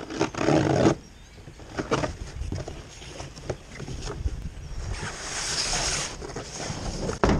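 Large cardboard box being torn open and handled on a sheet-metal truck hood: rough scraping and rustling of cardboard with small clicks, a longer hissing tear of cardboard about five seconds in, and a sharp knock near the end.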